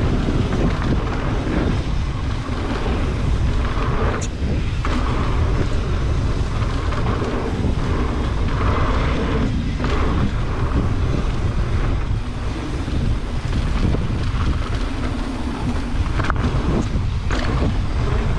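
Wind buffeting the microphone over the steady rumble of a mountain bike rolling down a dry dirt trail, with a few sharp knocks.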